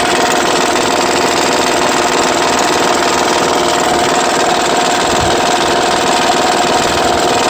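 The 2009 Honda Pilot's 3.5-litre V6 engine running with a fast, steady clattering rattle. The owner traces the rattle to a loose timing belt tensioner.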